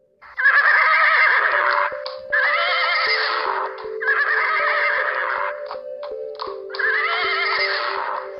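A horse whinnying four times, each call about a second and a half long with a shaky, wavering pitch, over steady background music.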